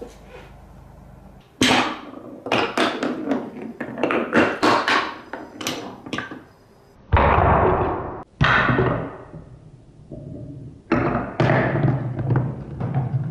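Balls running down a wooden Trix Track marble run. After a quiet first second and a half come rapid clicks and knocks as they drop and strike the wooden pieces. About seven and eight seconds in there are louder, longer rolling rumbles along the wooden track, and more clattering knocks follow near the end.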